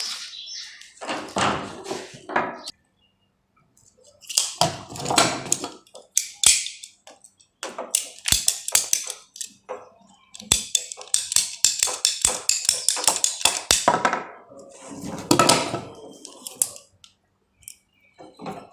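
Pipe fittings and plumbing tools being handled: irregular clatter, knocks and sharp clicks of plastic and metal parts being picked up, fitted and set down, with a short pause a few seconds in.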